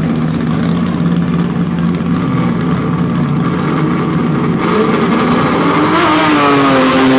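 Drag-racing car engine idling with a steady low note at the start line. In the last couple of seconds it is revved, its pitch swinging down and up.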